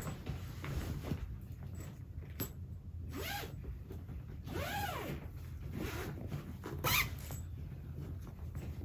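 Zipper on a grey nonwoven fabric storage bag being pulled open in several strokes. Two longer rasps rise and then fall in pitch, and a short sharp one comes about seven seconds in.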